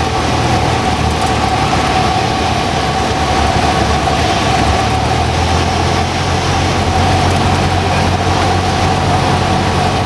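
Cessna 172 Skyhawk's engine and propeller droning steadily, heard inside the cabin on final approach to landing.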